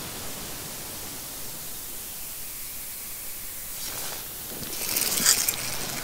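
Steady outdoor hiss, with rustling about four to five seconds in.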